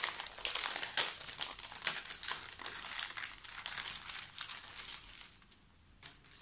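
Clear plastic packaging sleeve crinkling and crackling as it is handled and wooden die-cut pieces are taken out of it; the crinkling thins out and stops about five seconds in.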